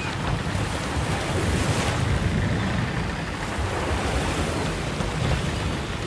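Ocean waves and wind: a steady rushing wash of surf with a deep low rumble underneath.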